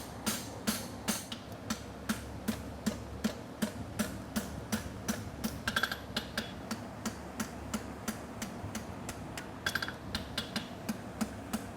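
Light, even hammer blows on a hot steel horseshoe on the anvil, about three a second, with a few strikes ringing out from the anvil; the evaporative cooling fan buzzes steadily underneath.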